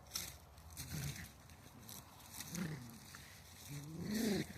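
Three low, drawn-out animal calls, each rising and falling in pitch, the last and loudest near the end.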